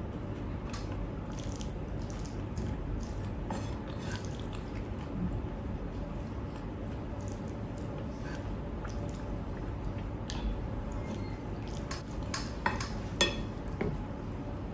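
A person eating: scattered small wet mouth clicks and chewing sounds, with a few louder sharp clicks near the end.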